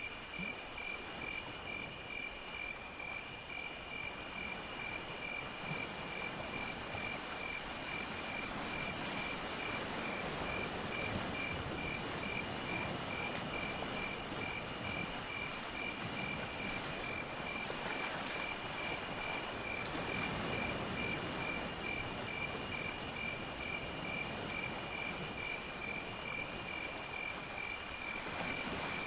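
Night insect chorus: crickets chirping in a steady, even pulse, with a higher insect buzz that comes in repeated phrases of a couple of seconds each, over a steady low hiss.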